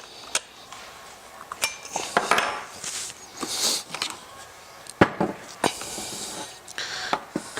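Metal wrench clinking and scraping against a chainsaw's bar nuts and cover as they are tightened: a handful of sharp clicks and knocks with short rasps in between.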